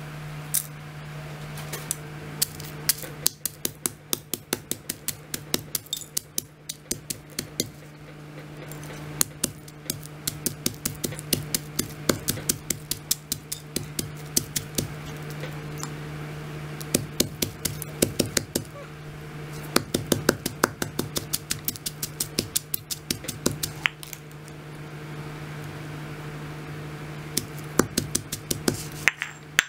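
Granite mortar and pestle pounding Thai chilies, shallots and garlic: quick, sharp stone knocks, about three or four a second, in runs with short pauses, over a steady low hum.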